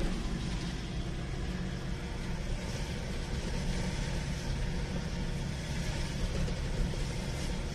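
Engine and road noise of a moving vehicle, heard from inside its cabin: a steady low drone with no clear changes.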